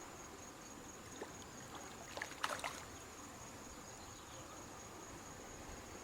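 Crickets trilling steadily at a high pitch over the wash of a river, with a brief cluster of clicks and splashing about two seconds in.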